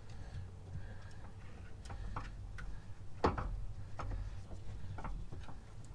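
Irregular light clicks and taps as a gloved hand works an ignition coil pack and its wire connector into place, with one sharper knock a little past halfway.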